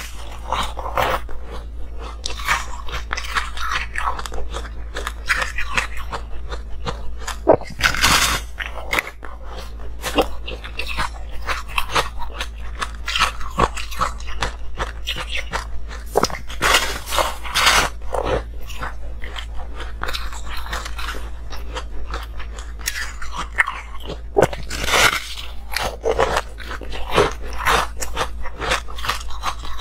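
A person biting into and chewing a moulded block of frozen coloured ice, close-miked: dense crackling crunches throughout, with a few louder, sharper bites.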